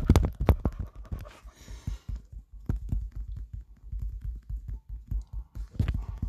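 Rapid finger taps on a phone touchscreen, a quick run of clicks several per second as a click-counter app's minus button is pressed over and over. The taps come in dense runs at the start and near the end, with a thinner patch in the middle.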